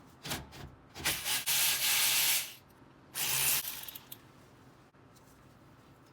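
A cordless impact driver running in two bursts, a longer one about a second in and a short one near the middle, loosening the 14 mm brake caliper bolts, with a few light clicks before it.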